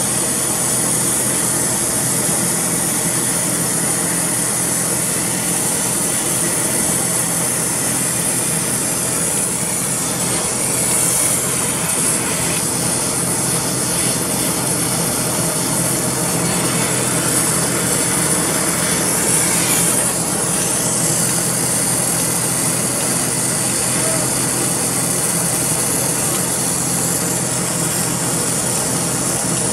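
Brazing torch flame hissing steadily while a copper refrigerant line joint is heated and brazed with 15% silver solder.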